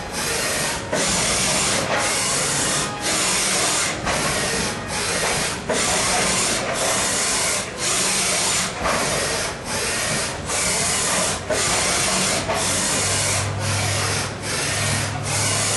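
ACER VMC 2240XL vertical machining center running: a loud, rushing hiss that drops briefly about once a second in a steady rhythm, over a faint low machine hum.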